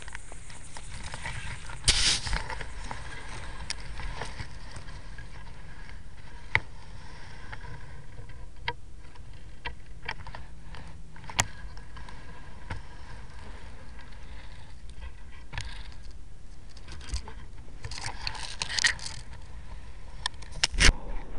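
A homemade Lego-and-rubber-band rolling camera rig rattling, clicking and scraping as it moves over sand inside a gopher tortoise burrow, over a steady low hum from the cheap camera's microphone. Louder scraping comes about two seconds in and again near the end.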